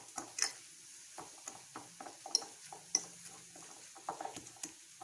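A spoon working against a dish or jar: a run of light taps and scrapes, with two sharper clinks a little past the middle.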